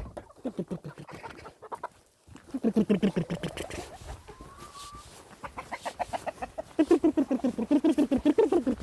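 Chickens clucking in fast runs of short calls, loudest in a bout about two and a half seconds in and again over the last two seconds.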